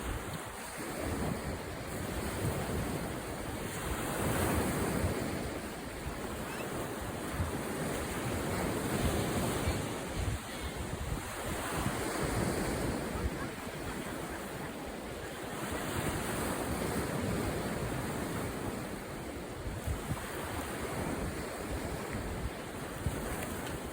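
Wind blowing over the microphone along with sea waves washing, the noise rising and falling in surges every few seconds.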